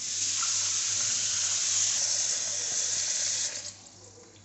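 Water running steadily over cut raw jackfruit pieces as they are washed, stopping a little before the end.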